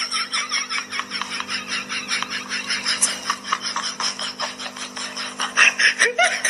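Small handheld electric fan running against a cat's face: a steady motor hum with a fast, even ticking over it.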